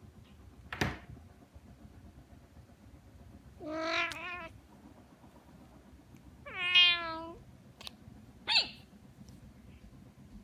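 Domestic cat meowing twice, the second meow longer and louder. A brief sharp sound comes about three seconds before the first meow and another about a second after the second.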